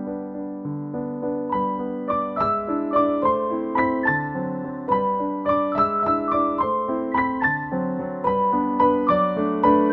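Background music: an electric piano playing a light melody of short notes over a low accompaniment.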